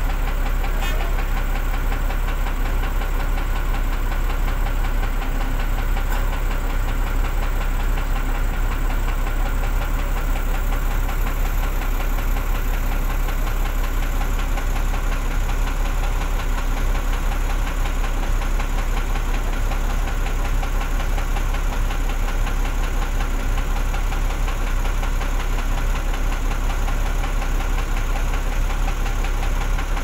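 Diesel engine of a truck-mounted crane running steadily at idle, a low, even rumble with a fast regular pulse, as it holds a road roller up on its slings.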